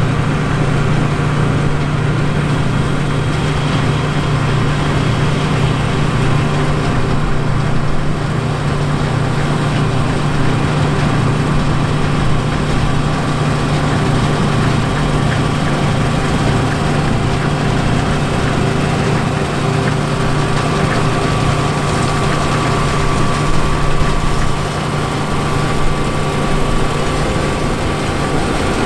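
A John Deere 9450 combine's 190-horsepower diesel engine running steadily with a constant low hum, with a faint steady whine joining in about two-thirds of the way through.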